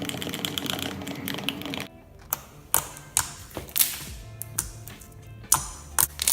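Background music, then from about two seconds in, sharp irregular clicks and pops of slime being mixed and worked by hand.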